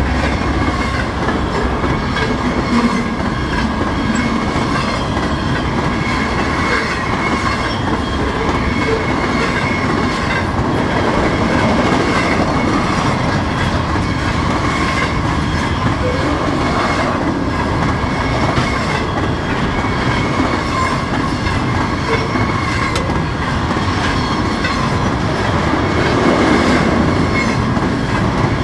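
BNSF freight train rolling past, a steady loud rumble and clatter of wheels on rail, with a faint high wheel squeal over it.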